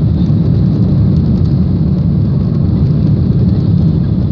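Steady deep rumble of a Boeing 737-800's CFM56 jet engines and the airflow over the airframe, heard inside the cabin while climbing out after takeoff.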